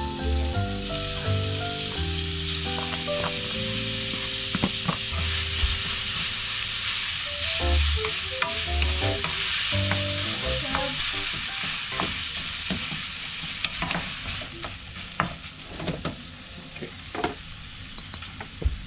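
Ground meat sizzling as it fries in a hot nonstick frying pan, stirred and broken up with a wooden spatula that scrapes and taps against the pan. The sizzle is strongest for the first dozen seconds or so and thins out toward the end, where the spatula taps stand out.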